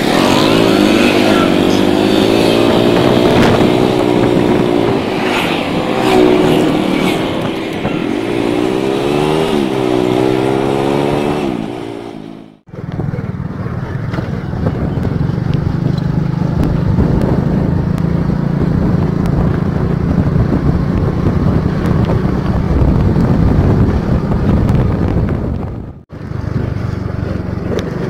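Motorcycle engine running while riding, its pitch rising and falling with changes of speed for the first dozen seconds. After two brief breaks in the recording, it settles into a steadier low drone.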